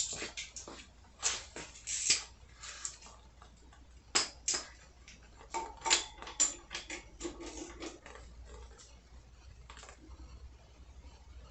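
Metal hand tools, a socket wrench with an extension and sockets, clinking and clicking as they are handled and fitted, with irregular sharp clicks and a brief cluster of ringing metallic clinks about halfway through.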